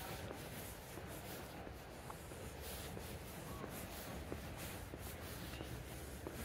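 Faint, steady background noise with scattered light ticks and rubbing sounds.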